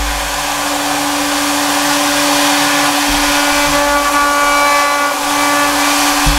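CNC router spindle running with a steady whine while a single-flute cutter mills aluminium plate, under a loud hiss of the compressed-air and spirit mist cooling.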